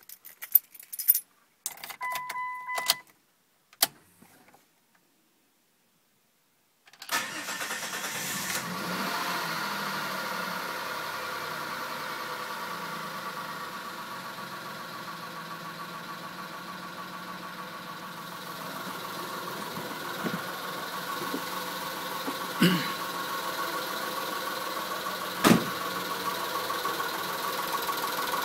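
Clicks and a short electronic tone, then, about seven seconds in, a Chrysler Stratus/Cirrus engine starts and settles into a steady idle, with two sharp clicks near the end. This is the engine noise that appeared after its timing belt was changed.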